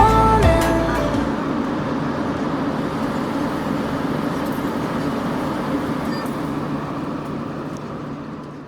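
Steady engine drone and air noise inside an airliner cabin, with a low hum under it, slowly fading down near the end.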